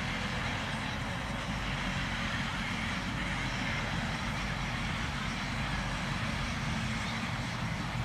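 Steady outdoor background noise, a low rumble with a hiss above it, with faint voices in the distance.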